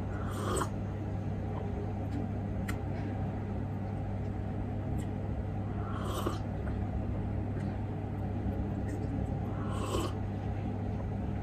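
Three short sips of black tea from a small cup: one right at the start, one about six seconds in and one about ten seconds in, over a steady low hum.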